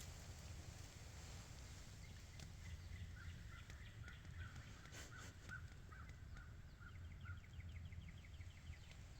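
Faint outdoor bird calls: a series of about a dozen short notes at a steady pace through the middle, followed by a quick rattling trill near the end.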